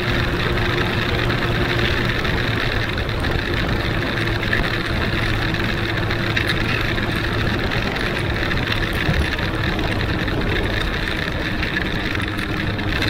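Huanglong 600 motorcycle's inline-four engine running at steady revs while riding, under an even rush of wind and road noise.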